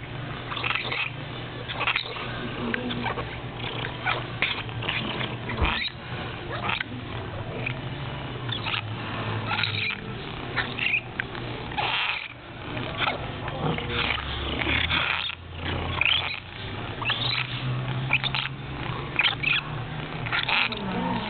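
A domestic cat, with many short clicks and rustles over a low steady hum.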